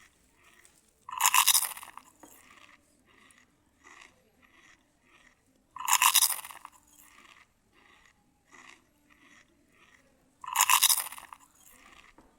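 Close-up eating sounds: three loud crunches, about every four and a half seconds, from biting into crisp food, with softer wet chewing about twice a second between them.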